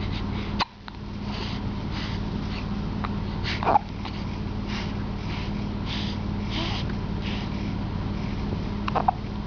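Newborn baby hiccuping: short separate hiccups a few seconds apart, the loudest about halfway through, over a steady low hum.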